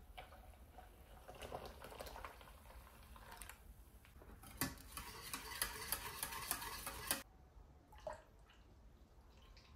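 Kitchen utensil sounds: faint clinks of a spoon and dishes, then a louder spell of busy clinking and rattling, like stirring or mixing in a cup, that starts with a sharp knock about halfway through and stops abruptly, followed by one more knock.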